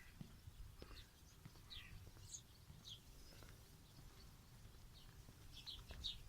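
Distant songbirds chirping faintly: short, high, falling notes, scattered about once a second, over a low rumble.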